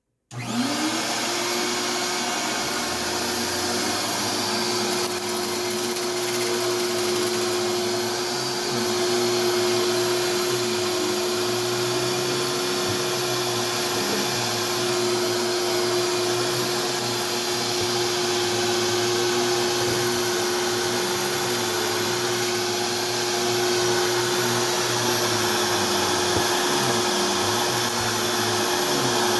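Castex Lite Trac upright vacuum cleaner switched on: the motor spins up with a quickly rising whine within about half a second, then runs steadily with a constant whine over a dense rushing of air.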